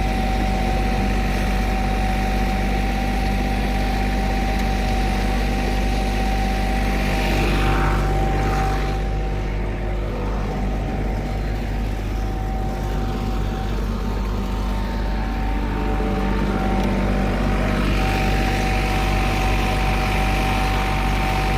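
Diesel engine of asphalt paving machinery running steadily, with a constant high whine over the engine drone.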